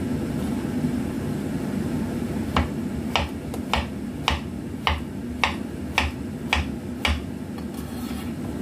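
Chef's knife chopping a Hong Kong cucumber into thick slices on a cutting board: nine even chops, just under two a second, starting about two and a half seconds in. A steady low hum runs underneath.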